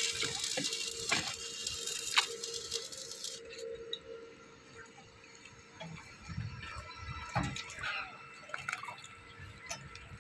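A steady crackling hiss that cuts off abruptly about three and a half seconds in, followed by scattered light clinks and knocks of steel rebar and formwork being handled.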